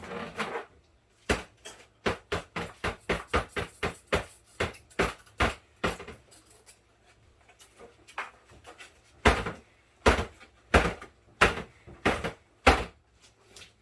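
A quick run of sharp knocks and clatters, about four a second, then a slower run of six louder knocks near the end: refrigerator parts being handled and knocked during cleaning.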